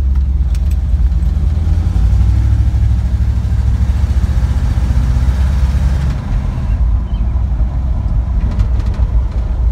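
1955 Chevy pickup's engine running as it drives slowly, heard from inside the cab, with a steady low rumble and road noise. The engine note eases off about six seconds in.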